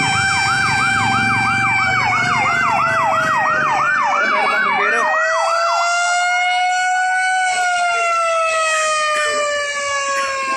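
Fire truck sirens: one a fast warbling yelp that stops about six seconds in, the other a steady high wail that slides slowly lower toward the end. A low rumble sits underneath for the first five seconds.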